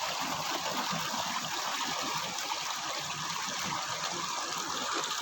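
Shallow water running and trickling steadily over rocks beneath a nearly dried-up hill waterfall, where only a little water still falls between the stones.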